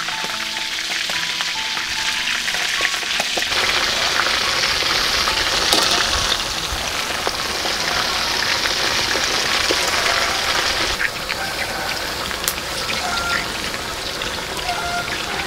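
Pork-stuffed squid deep-frying in a wok of hot oil: a steady sizzle that grows louder about three and a half seconds in. Soft background music plays under it.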